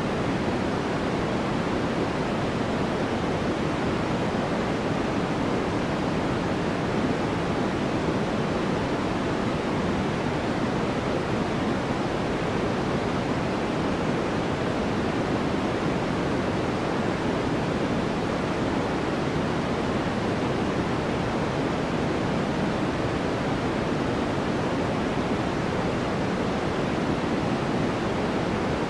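Steady synthetic white noise: an even, unchanging rush with no events, strongest in the middle range and softer in the highs.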